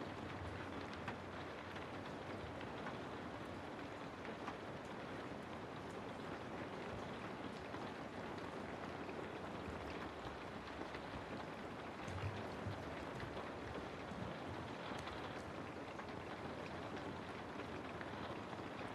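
Steady rain falling through forest trees, with scattered individual drop hits ticking out above the even hiss.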